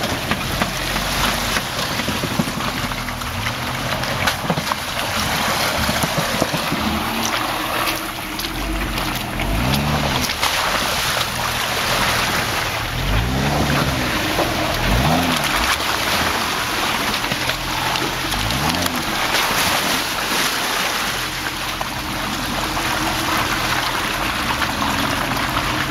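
Lifted Jeep JK Wrangler on 37-inch BFGoodrich Mud-Terrain KM2 tires driving through mud and water. The engine revs up and down several times from about ten seconds in, over the steady churn and splash of the tires in the mud.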